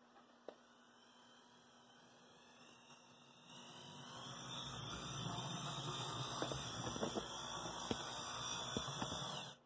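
Brass HO-scale model locomotive with a 24-volt motor running along the track, mostly gear noise: a faint whine that grows louder about three and a half seconds in, with a few light clicks, and stops sharply just before the end.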